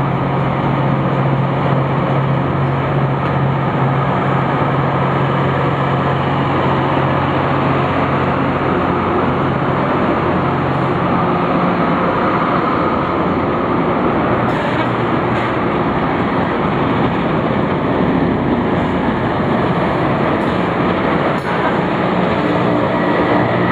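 LORAM LMIX rail grinder train rolling past close by with its grinding units working the rail: a loud, steady grinding rush. A low engine hum underneath fades out about halfway through.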